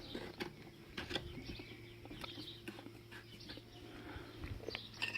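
Faint small clicks and taps of small metal engine parts being handled, as a collet is fitted onto the governor shaft, over a steady low background hum.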